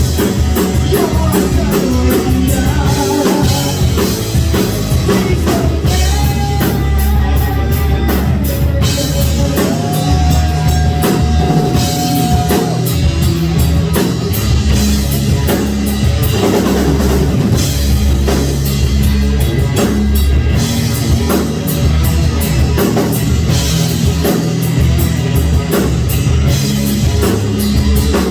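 A rock band playing live with a full drum kit, bass and a melodic lead line that holds long notes, loud and steady throughout.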